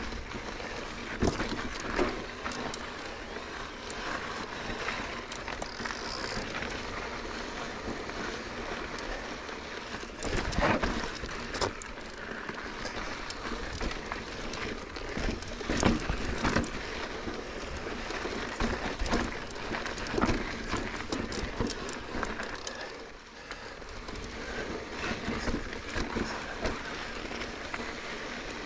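Mountain bike descending rough downhill trail: steady rushing tyre noise, broken by frequent irregular clatters and knocks as the bike hits rocks and bumps.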